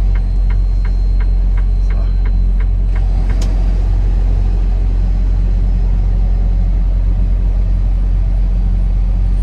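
Semi-truck running, a steady low rumble. Over the first three seconds there is a regular ticking about three times a second, and a single sharp click comes a little after.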